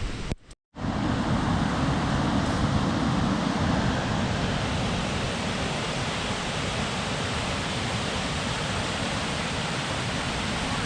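Waterfall swollen with spring snowmelt runoff, a steady rushing of water that comes in after a brief drop-out about half a second in.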